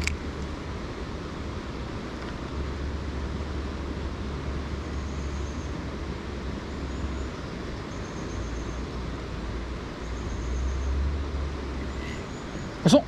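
Wind rumbling and buffeting on the camera microphone over a steady outdoor hiss, with a brief sharp whoosh near the end.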